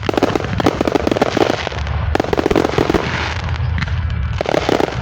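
Fireworks going off close by, crackling in dense runs of rapid pops that come in clusters, with a shorter burst near the end.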